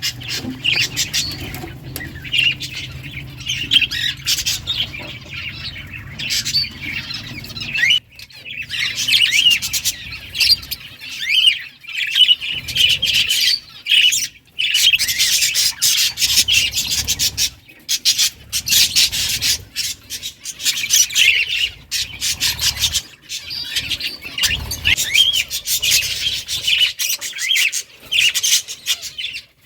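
A colony of budgerigars chattering continuously, many birds chirping and warbling over one another in a dense stream of short, high-pitched calls.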